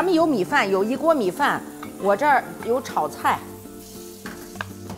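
A woman talking with wide swoops in pitch over background music, followed by a few light knocks near the end, like a knife on a cutting board.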